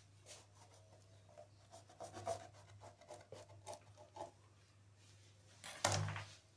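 Knife slicing through a pan-fried crepe on a wooden cutting board, with faint crackling and scraping as the blade goes through, then a louder knock near the end.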